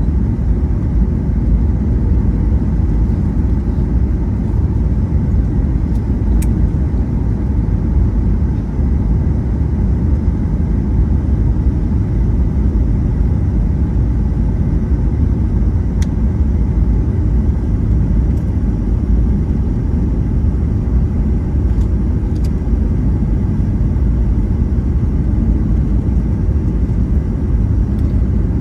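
Steady low rumble of airliner cabin noise, engines and airflow heard from inside the cabin, unchanging throughout, with a couple of faint clicks.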